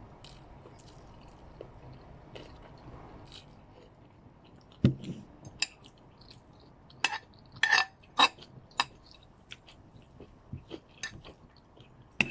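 Eating sounds: chewing a mouthful of stir-fried egg noodles and vegetables. There is a sudden knock just before five seconds in, then a run of sharp clicks and clinks of the fork on the plate around seven to nine seconds.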